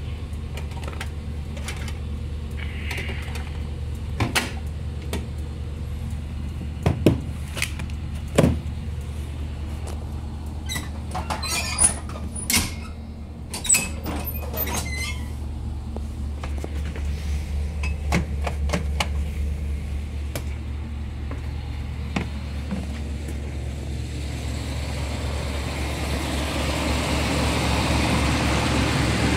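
School bus engine idling steadily, getting louder near the end as the camera reaches the front grille. Several sharp knocks and clicks come through the middle stretch.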